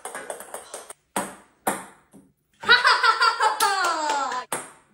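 Ping pong balls bouncing on a wooden table, a run of light sharp clicks. Then, about two and a half seconds in, a girl lets out a long, loud excited scream that falls in pitch.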